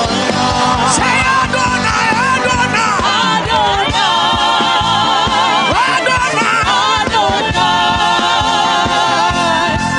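Gospel worship music: singing over a band with a steady beat.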